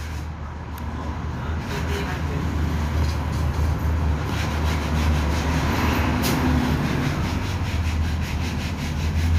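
Steady low mechanical hum under a rough, hissing noise, with a sharp click about six seconds in.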